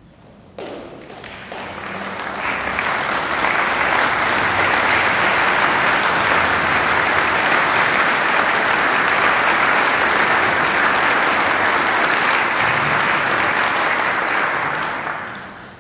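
Audience applauding, swelling over the first few seconds, holding steady, then dying away near the end.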